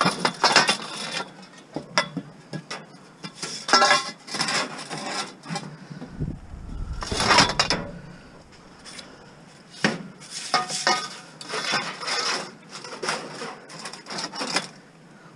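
Long aluminum pipes scraping and clanking as they are shoved into a van's cargo area against a scrap stove body. The rubbing and knocking come in about five separate bursts, a few with a short ringing note.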